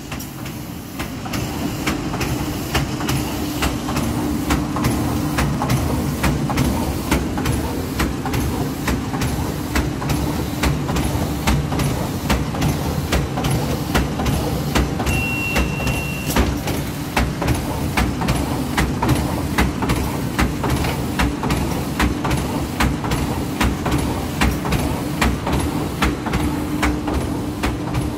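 An Arvor GGL 128 automatic welding machine running in a busy factory, a steady mechanical din with a fast, regular clicking of about three clicks a second and a low hum. A short high beep sounds about halfway through.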